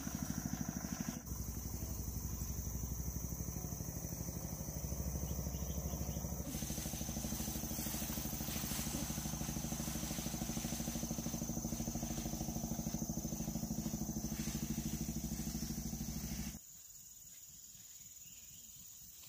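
A small engine running steadily with a fast, even pulse; it cuts off abruptly about sixteen and a half seconds in.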